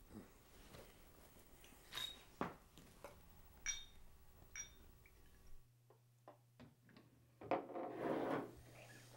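A few faint glass clinks as vodka is poured from a bottle into a small shot glass. Partway through a low steady hum comes in, and about eight seconds in there is a louder stretch of knocking and scraping as a shot glass is set down on a bar counter.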